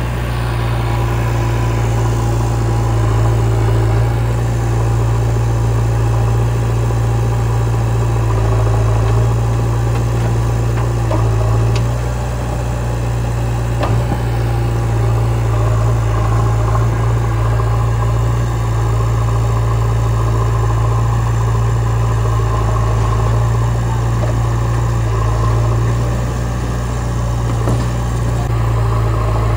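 Heavy diesel engine of earth-moving machinery running steadily with a deep low hum, and a few brief knocks partway through.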